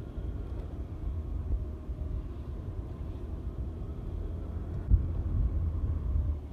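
Low, steady rumble of a vehicle moving along a street, heard from on board, with one sharp thump about five seconds in.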